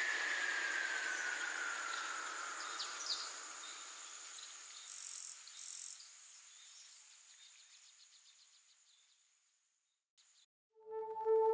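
Film soundtrack ambience of the desert scene: a hiss with a slowly falling whine that fades away, a pair of short high chirps midway, then near silence. Sustained music tones from the film's score begin near the end.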